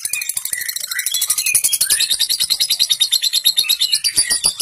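Lovebird's long 'ngekek' chatter: a fast, unbroken run of sharp, high rasping notes, roughly ten a second, with short gliding chirps woven in.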